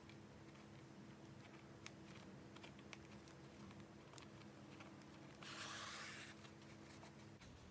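Near silence with faint handling noises of hand sewing: a few small ticks and, about five and a half seconds in, a brief soft rustle of cloth and thread being drawn through. A steady low hum lies underneath.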